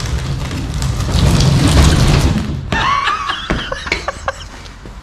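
A heavy wooden partition wall being pushed, giving a loud, rumbling scrape for about two and a half seconds, followed by a man laughing.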